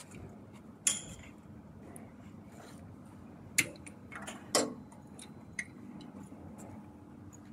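A few sharp metallic clanks and knocks from a metal battery case and tools being handled, one about a second in, two close together in the middle and a lighter one after.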